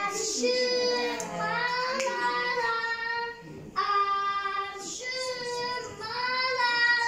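A child singing a melody in long held notes, two phrases with a short break about three and a half seconds in.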